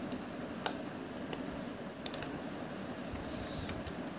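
A few sharp clicks of a computer mouse and keyboard over a steady background hiss: one about half a second in and a quick pair near two seconds.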